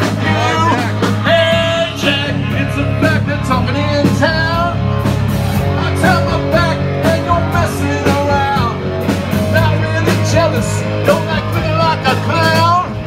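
Rock-and-roll song playing: a singer over guitar and a steady bass line.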